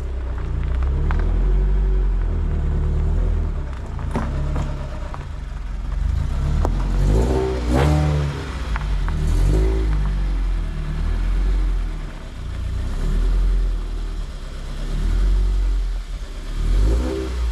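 Scion FR-S's flat-four engine running through an aftermarket exhaust with a deep, steady low drone, revved up and back down a few times.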